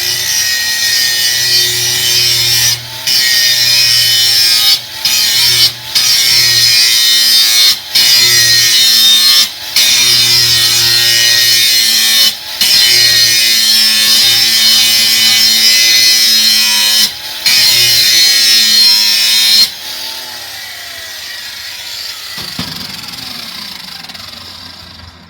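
Cordless 4½-inch angle grinder with a grinding wheel grinding the edge of a steel lawnmower blade, briefly lifted off the work about eight times. The grinding stops about 20 seconds in and the motor winds down with a falling whine.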